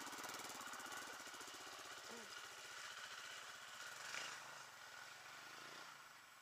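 Dirt bike engines. One off-road motorcycle pulls away up a muddy track, its engine note fading as it goes, over the steady pulsing of a second bike's engine close by.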